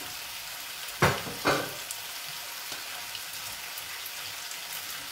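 Chard stems and diced guanciale frying in two pans, a steady sizzle. About a second in, two sharp knocks of kitchenware half a second apart.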